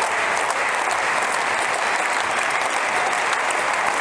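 A large stadium crowd applauding: a steady, dense wash of clapping.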